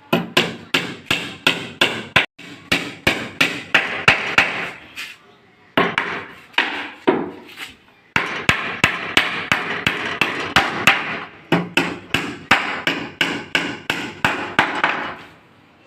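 Hammer striking wood in quick, sharp blows, about three a second, in runs broken by short pauses about five and eight seconds in.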